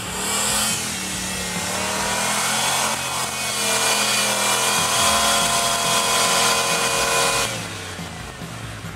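Off-road tube-frame buggy's engine revving hard under load as it climbs a dirt mound with its wheels spinning. The pitch wavers at first, then holds at high revs and eases off about seven and a half seconds in.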